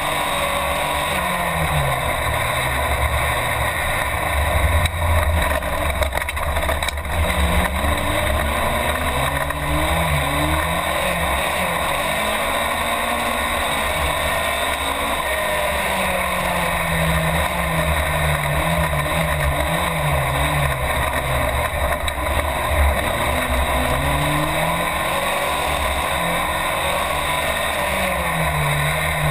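Race car engine heard from inside the cabin, revving up and dropping back again and again as the car is driven hard.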